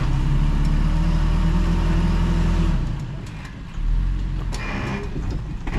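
Toyota Tacoma's engine pulling steadily under load as the truck crawls up a rock ledge in low range, then easing off about three seconds in and picking up again briefly a moment later.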